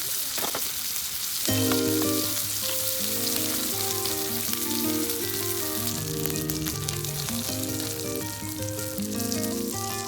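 Food frying with a steady sizzle. Background music with a bass line comes in about a second and a half in and plays over it.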